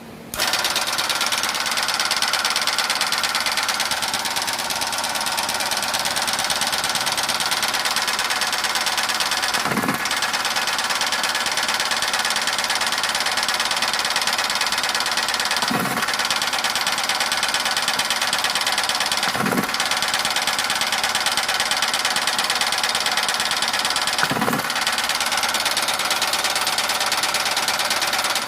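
A cigarette-making machine starts up and runs steadily with a fast, dense mechanical clatter, then stops abruptly at the end. Four brief low thumps sound through the run, roughly 10, 16, 19 and 24 seconds in.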